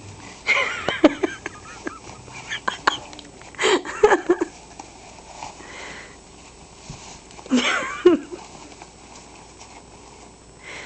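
Three short bursts of wheezy, breathy laughter-like voice sounds, about half a second in, about four seconds in and about eight seconds in, mixed with crackly rustling and scrabbling as a cat wrestles a toilet paper roll on a tile floor.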